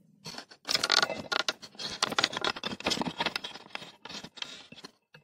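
Handling noise of tools and metal parts: an irregular run of scrapes, clinks and rattles lasting about four seconds, thinning out near the end.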